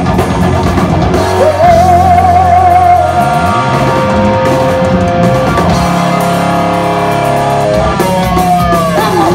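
Hard rock band playing live at full volume, with amplified guitars and drums. A held lead note wavers over the band, and near the end it slides downward.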